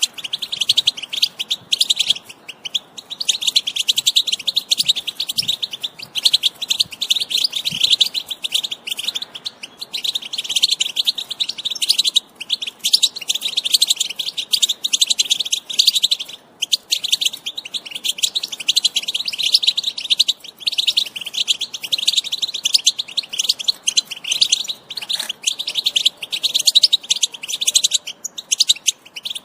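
European goldfinch song: a fast, continuous run of twittering trills and chirps, broken by short pauses every few seconds.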